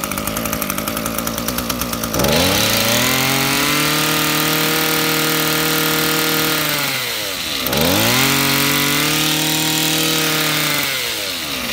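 Echo 24cc two-stroke brush cutter engine idling, then revved up twice with the throttle, each time held at high revs for several seconds before dropping back to idle. It is a test run of a used machine that starts and runs well.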